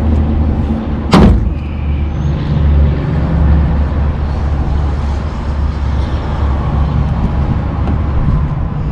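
Steady low rumble like a running motor, with one sharp knock about a second in.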